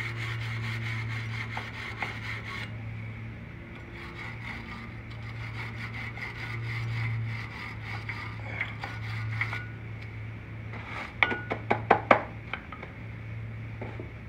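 A stiff hand brush scrubbing the slide channels of a Ford Ranger front brake caliper clean, in quick rasping back-and-forth strokes. There is a burst of sharp metal clicks and taps about eleven seconds in, and a steady low hum underneath.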